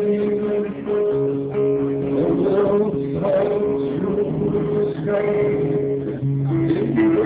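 Live music: a guitar played with a man singing along into a microphone. It is recorded on a phone and sounds dull, with no high end.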